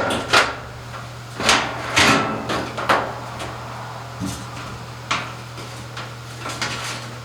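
Knocks and clicks of a washing machine's cover plate being handled and fitted back into place, several sharp knocks spaced about a second apart, over a steady low hum.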